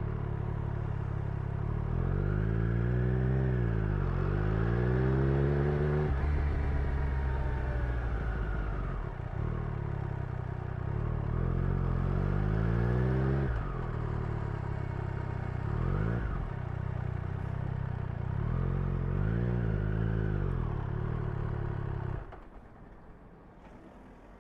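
Triumph Street Triple's inline three-cylinder engine and exhaust revving up and down several times, then stopping suddenly near the end.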